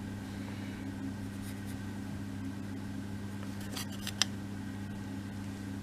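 Light clicks of laser-cut wooden kit parts being handled during gluing, a few close together with one sharp click about four seconds in, over a steady low hum.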